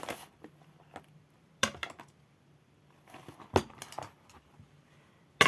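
A ruler and pens being handled and put into a pencil case: a few short sharp clacks about two seconds apart, the last the loudest.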